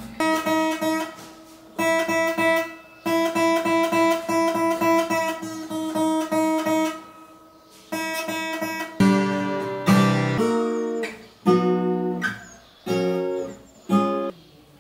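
Fender CD-60SCE steel-string acoustic guitar being played: quick picked notes repeating a chord pattern, a short pause about seven seconds in, then louder, lower chords plucked one after another.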